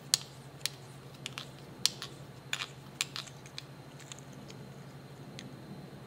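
Sharp little clicks and ticks of a headlamp switch's plastic and metal parts handled in the fingers as it is unscrewed and taken apart: about a dozen over the first four seconds, fewer after. A steady low hum runs underneath.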